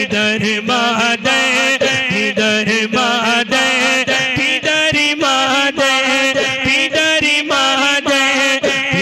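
A man chanting a naat, an Urdu devotional poem, into a microphone through a PA system, in a continuous melismatic singing style over a steady low drone.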